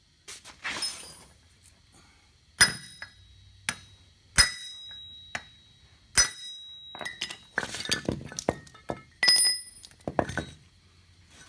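Hammer striking a steel punch to tap the wheel joint shaft out of the hub's ball bearing: several sharp ringing metal strikes about a second apart, then a quicker run of lighter metal clinks and knocks in the second half.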